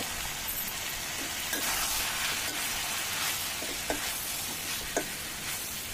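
Mixed vegetables and spice powders frying in oil in a stainless steel kadai, sizzling steadily while a ladle stirs them. The sizzle grows fuller once the stirring starts, and a few light clicks of the ladle against the pan come near the end.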